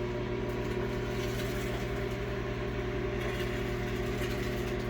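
Sharp Carousel SMC1132CS microwave oven running mid-cycle, a steady hum.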